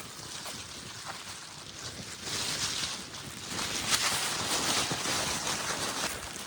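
Wind blowing outdoors, rushing harder in gusts about two seconds in and again from about three and a half seconds.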